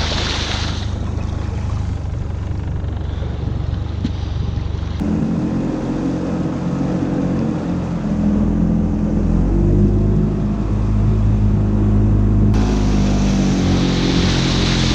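Honda four-stroke outboard motor running steadily under way, with the wake rushing and splashing behind the boat, the water sound loudest at the start and near the end.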